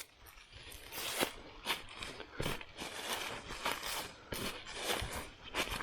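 A hand digging tool cutting into shallow soil: irregular crunches and scrapes of dirt, several a second.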